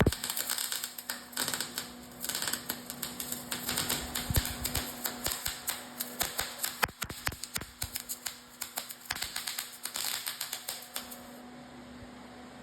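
MIG welding arc crackling and sputtering in several runs with short breaks, stopping a second or so before the end, over a steady low hum.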